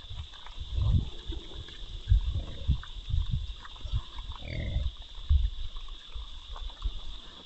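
Feral hogs in a pen trap, giving several short grunts among low thumps and shuffling as they move about, over a steady high-pitched hiss.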